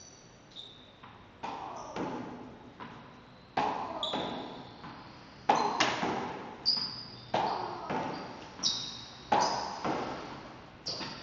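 Tennis ball being hit against a wall with a racket and bouncing on a hard tiled floor: a string of sharp hits, roughly one or two a second, each ringing on in a long echo in a large empty hall. Short high-pitched squeaks come between some of the hits.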